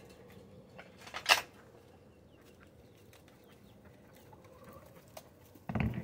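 A sharp knock about a second in and a short dull thud near the end, with a quiet background between them.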